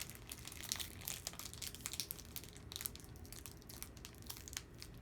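Foil wrapper of a Pokémon trading-card booster pack crinkling and crackling in irregular bursts as it is handled and pulled at to get it open.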